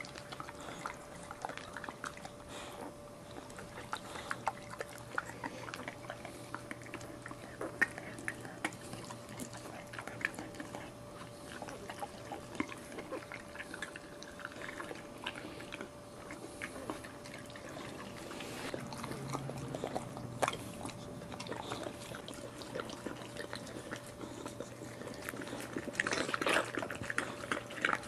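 Mother boxer licking and mouthing a newborn puppy's amniotic sac to free it: wet licking and smacking clicks, busier and louder near the end. A faint steady hum runs underneath.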